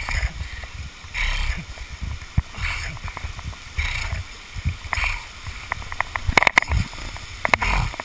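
Rappelling beside a small waterfall: splashing water and low rumble, with a rasping burst about once a second from the descent, and a few sharp metallic clicks of the rappel gear near the end.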